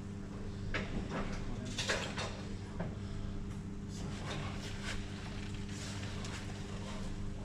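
Scattered light knocks, clinks and scrapes of side-step mounting hardware and brackets being handled and fitted, over a steady low electrical hum.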